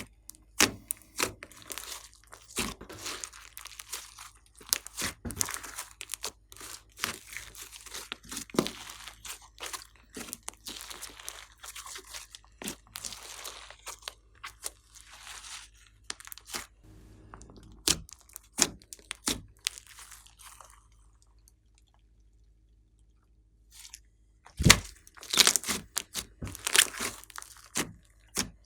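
Slime being kneaded, stretched and pressed by hand, giving dense sticky clicks, pops and crackles. The sounds thin out and nearly stop about two-thirds of the way through, then come back as a few louder snaps.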